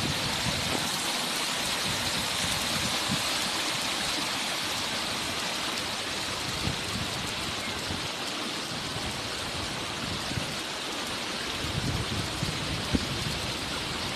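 Shallow river water running over and between rocks in small cascades: a steady, even rushing hiss. A few low wind bumps on the microphone near the end.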